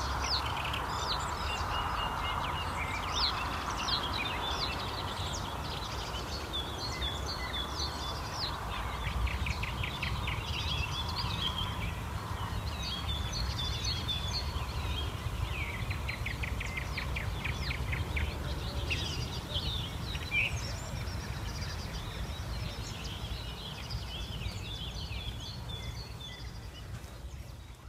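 Many songbirds singing at once in a morning chorus, with several rapid trills among the chirps and calls, over a steady low rumble. The sound fades out at the very end.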